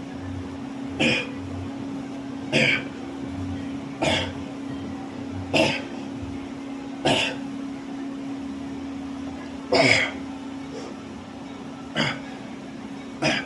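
A man's short, forceful breaths, one about every second and a half, eight in all with a longer gap near the middle: exertion breathing with each exercise rep. A steady low hum runs underneath.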